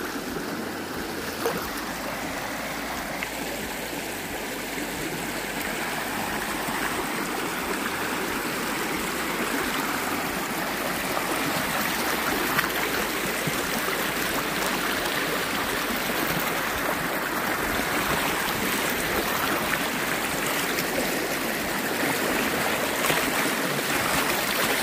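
Swollen river rushing, running high with floodwater after a hurricane; the steady rush grows a little louder over the first several seconds.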